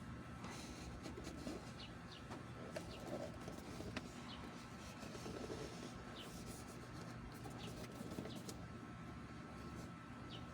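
Faint background birds giving short chirps every few seconds, over a low steady hum, with scattered soft clicks.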